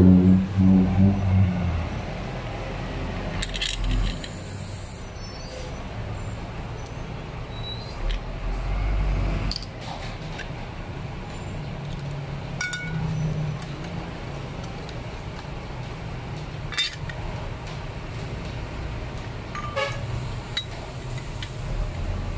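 Scattered sharp clicks and clinks of brush-cutter trimmer-head and metal-blade parts being taken apart and handled, over a steady low background rumble.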